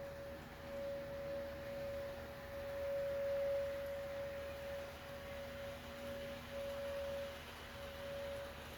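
Tornado warning siren sounding one steady tone, swelling and fading in loudness, loudest about three and a half seconds in.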